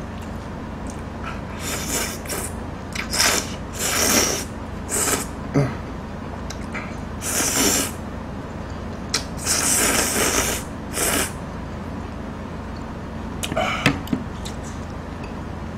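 A run of loud slurps as thick seafood kalguksu noodles are sucked up off chopsticks, about eight separate pulls, the longest lasting about a second around ten seconds in.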